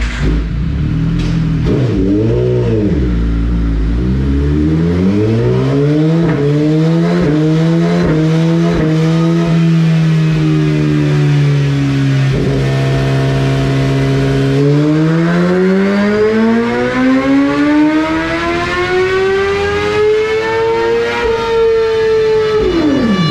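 Suzuki GSX-R1000R inline-four engine on a chassis dynamometer: a throttle blip, the revs climbing gradually as it is run up through the gears, a few seconds held steady, then a full-throttle pull with a smoothly rising howl from about fifteen seconds in, chopped off sharply near the end. This is the bike's first pull with its ECU flashed to remove the factory throttle restriction.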